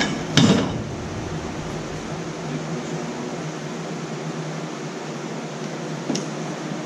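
Steady hum and whir of a wall-mounted window air conditioner running, with a short knock about half a second in.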